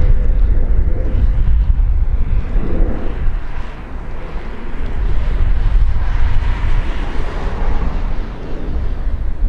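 Jet engine noise from an ANA Boeing 787's Rolls-Royce Trent 1000 engines at climb thrust, passing overhead: a steady deep rumble with hiss above it. It dips briefly about four seconds in and swells again after.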